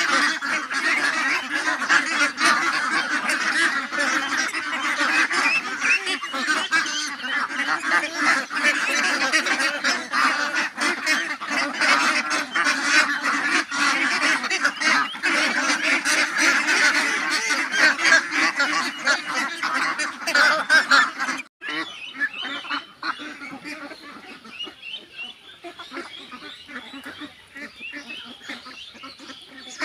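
A large flock of domestic ducks quacking together in a dense, continuous chorus. About two-thirds of the way through it drops suddenly to quieter, sparser quacking.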